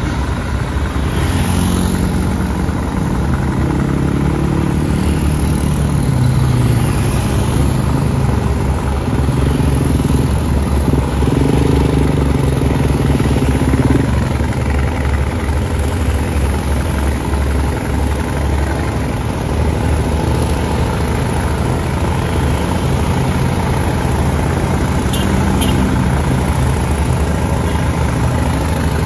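Heavy diesel engine of a coach bus running close ahead, its pitch shifting a little as the revs change, over steady road noise.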